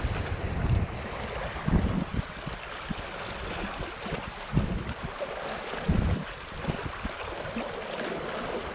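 Small sea waves lapping and washing against shoreline rocks, with wind rumbling on the microphone in gusts.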